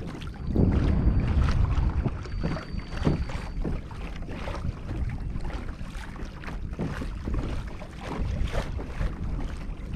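Wind buffeting the microphone, with water lapping and slapping against the hull of a Hobie Outback kayak under way across open bay water.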